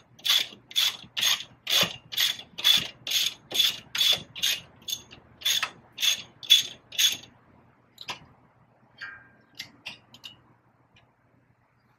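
Hand ratchet wrench clicking in quick repeated strokes, about two a second, as a bolt is turned. The strokes stop about seven seconds in, followed by a few lighter, scattered clicks.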